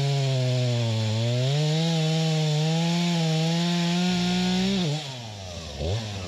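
Two-stroke chainsaw held at full throttle, cutting into the base of a standing tree. Its pitch dips under load about a second in. Just before the end the throttle is let off and the engine drops back, with a brief blip after.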